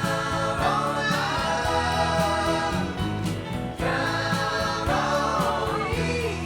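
Background music: a song with sung vocals over a steady beat and bass.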